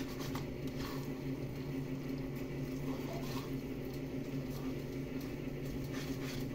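Pasta being tossed and stirred with a plastic spaghetti server in a nonstick frying pan: faint soft scrapes and clicks, over a steady low mechanical hum.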